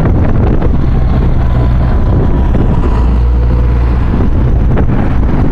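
Strong wind buffeting the microphone: a loud, continuous low rumble.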